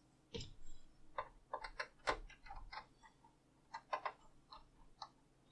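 Faint, irregular small clicks and taps of wires and fingers being worked into terminals inside an amplifier's open metal chassis, a dozen or so light ticks at uneven intervals.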